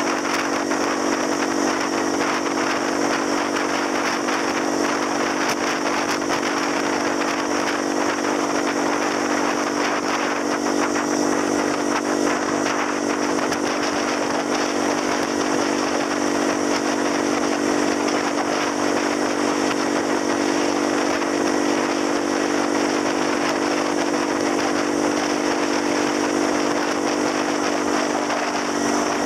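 Motor scooter engine running at a steady cruising speed, an even drone that does not change, under a constant rush of wind and road noise.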